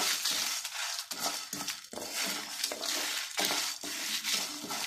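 Wooden spatula stirring whole coriander seeds, fennel, peppercorns and dried red chillies in a dry nonstick pan: the seeds rattle and scrape across the pan in repeated strokes as the spices are dry-roasted without oil.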